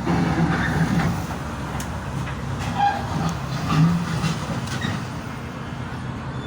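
A heavy engine running with a steady low rumble, with scattered clanks and knocks over it.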